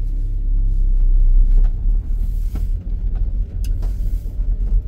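Car on the move: a steady low rumble of engine and road noise, with a few light ticks.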